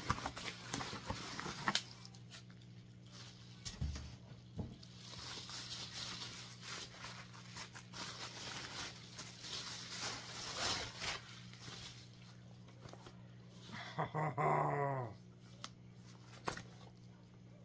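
Bubble wrap and plastic packing crinkling and rustling as a handbag is pulled out of it. About fourteen seconds in, a dog whines once, briefly, and this is the loudest sound.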